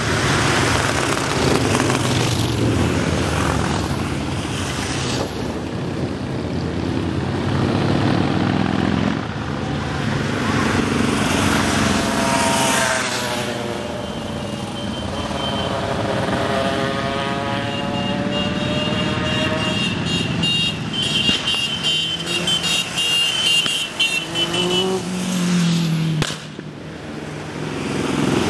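Motorcycles and a car riding past in procession, engine noise swelling and fading as each goes by, with one engine's pitch sweeping down and back up midway and a rev rising near the end. A high-pitched pulsing tone sounds over the traffic through the second half.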